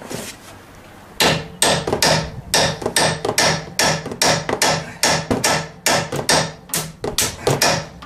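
Hand hammer beating on a steel chisel to cut the stakes off an old ball joint in a steel control arm. Steady, sharp metal-on-metal blows, about two to three a second, starting about a second in.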